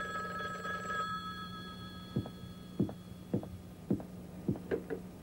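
A telephone ringing, which stops about a second in, then footsteps on a hard floor at a steady walking pace, over a low steady hum.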